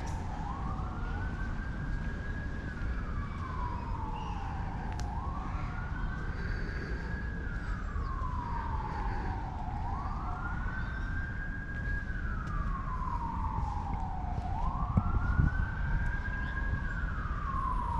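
Emergency vehicle siren wailing in slow cycles: each cycle rises, holds its high pitch briefly, then falls, about four times over. A steady low rumble sits underneath.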